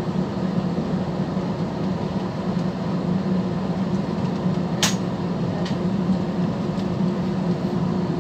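Steady airliner cabin noise: a low engine and air-conditioning hum over an even hiss. A single sharp click about five seconds in.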